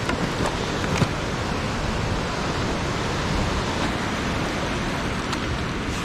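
Steady rush of water falling over a small cascade at a concrete weir, with a few light knocks in the first second.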